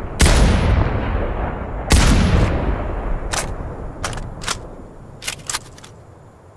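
Barrett M107A1 .50 BMG rifle firing two shots about a second and a half apart, each followed by a long echoing tail that dies away. A few sharp clicks follow over the next couple of seconds.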